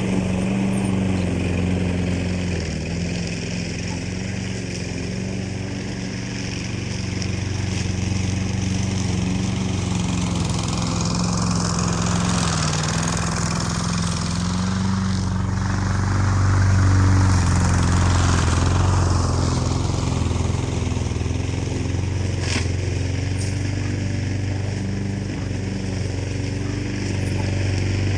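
Small engine running steadily with a low, even hum. It grows louder about halfway through and eases back again.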